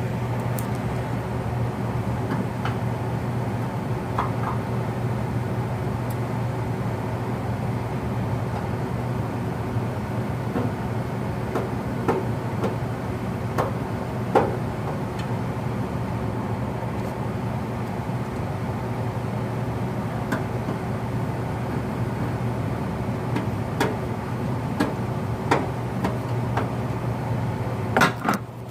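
Lennox G12 gas furnace running with a steady low hum, its burners lit. Scattered clicks and metallic knocks come from screws going back in and the sheet-metal cover panel being handled and refitted, the loudest knocks about halfway through and near the end.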